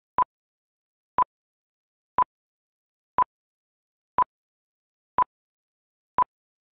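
Countdown beeps: short, identical beeps of one pitch, one each second, seven in all, with silence between them.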